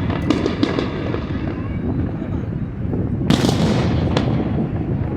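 Fireworks exploding in the sky: a quick run of sharp cracks in the first second over a continuous low rumble, then a big boom about three seconds in that fades slowly, and another burst right at the end.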